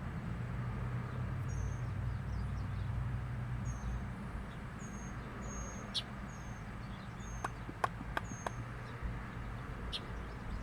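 A bird giving short, high chirps, repeated every second or so, over a steady low hum, with a few sharp clicks between them in the second half.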